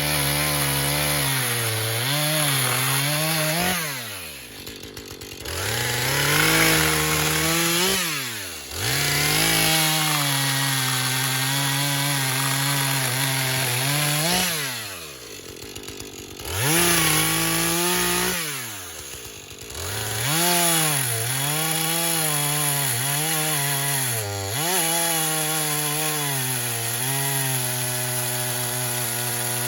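Two-stroke chainsaw, the backup 440, running at full throttle while cutting through a fallen oak; several times the revs drop away toward idle and then climb back up for the next cut.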